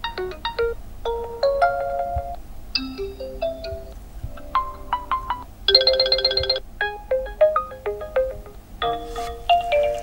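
Built-in ringtone previews playing from a Realme GT2 Pro phone's speaker: short melodies of clear chime-like notes. Each tune cuts off and a different one starts as the next ringtone is tapped, several times. About six seconds in there is a rapid trilling passage.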